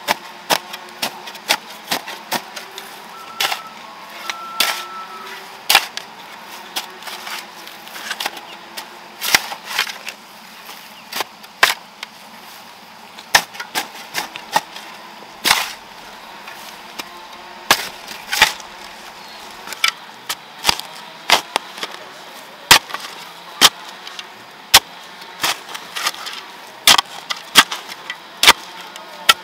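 A metal hoe chopping into garden soil: sharp strikes every second or so, often in quick pairs.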